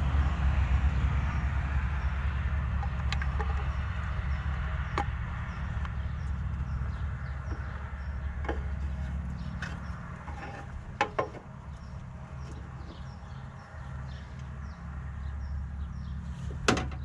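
Scattered light clicks and knocks from hand work fitting a turn signal marker light into a Jeep Wrangler TJ, about seven in all with the sharpest near the end, over a steady low rumble.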